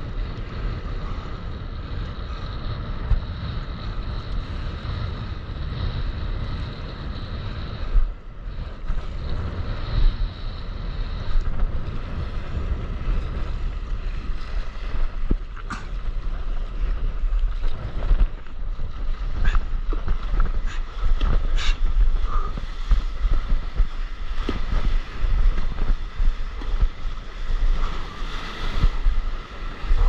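Wind buffeting an action camera's microphone over rushing, splashing sea water as a stand-up paddleboard rides a wave, with a few sharp splashes in the second half.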